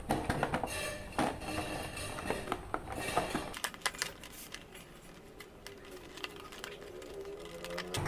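Hard plastic clicking, tapping and rustling as an action figure and its packaging are handled, busiest in the first half and sparser later.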